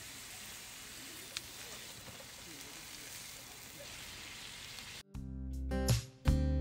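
Faint, steady outdoor background hiss. About five seconds in it cuts off and louder background music starts.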